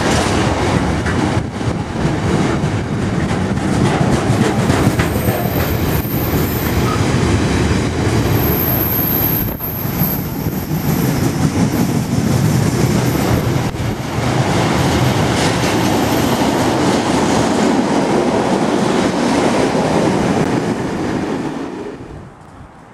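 Container wagons of an intermodal freight train rolling past close by: a steady loud rumble and clatter of wheels on the rails, with a thin, very high squeal through the middle. The noise falls away sharply near the end.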